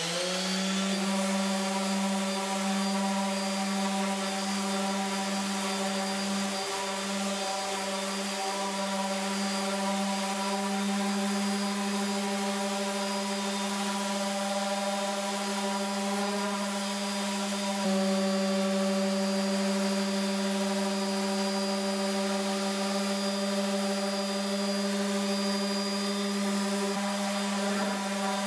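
Makita random orbital sander with 120-grit paper sanding a plywood panel. It comes up to speed at the very start, then runs with a steady motor hum at its single fixed speed, getting slightly louder about two-thirds of the way through.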